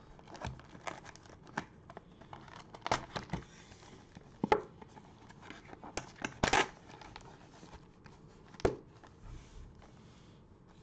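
A Panini Prizm basketball card retail box being opened by hand: irregular crinkling, tearing and sharp crackles of cardboard and wrapping as the box is opened and its foil packs are moved, with the loudest snaps about four and a half, six and a half and nearly nine seconds in.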